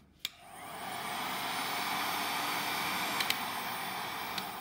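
Hot-air heat gun switched on with a click, its fan building to a steady blowing rush that holds for about three seconds and then dies away near the end, while it shrinks heat-shrink tubing over soldered switch terminals.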